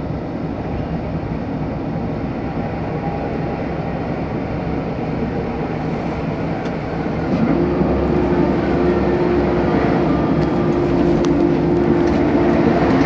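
8-ton excavator's diesel engine running steadily. About seven and a half seconds in it grows louder and a steady whine joins and holds.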